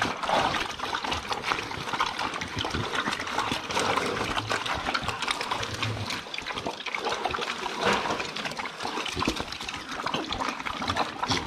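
Pigs eating, with continuous wet chewing, smacking and snuffling made of many small crackling clicks.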